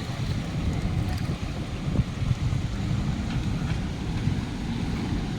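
Steady low rumble of wind and water on a moving boat, with wind buffeting the microphone.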